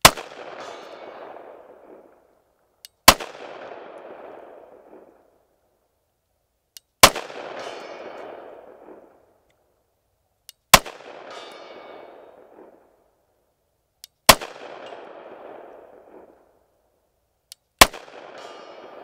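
Six pistol shots fired at a slow, even pace, three to four seconds apart, each sharp crack followed by a trailing echo of about two seconds.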